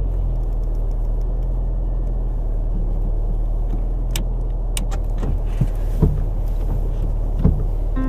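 Car engine freshly started and idling, a steady low hum, with a few light clicks in the second half.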